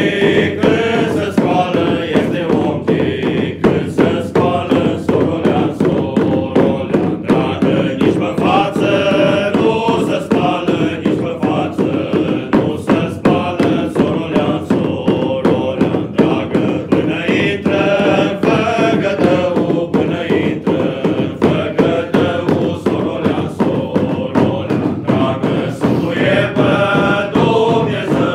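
Dubași carolers singing a traditional carol (colind) together while beating frame drums (dube) with wooden sticks in a steady rhythm.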